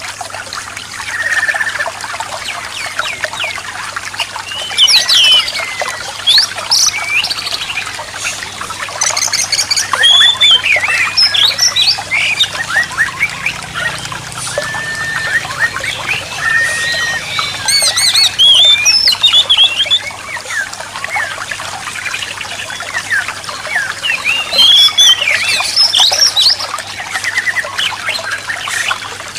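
Songbirds singing a busy mix of whistles, chirps and trills, over a steady trickle of running water.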